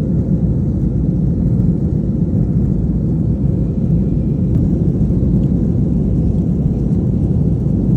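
Steady low rumble of an airliner's jet engines and airflow heard inside the cabin during the climb after takeoff.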